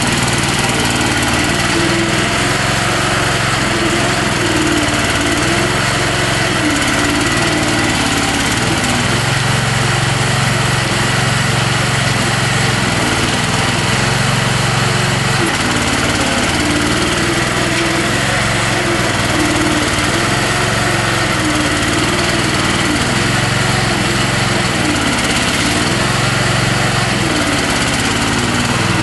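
Small engine of a homemade tractor running steadily under load as the machine drives, its pitch wavering up and down a little.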